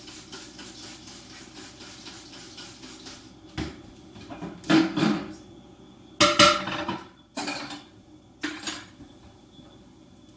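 Hard kitchen items being handled: a quick run of light ticks for about three seconds, then several separate clattering knocks and rattles, the loudest in the middle.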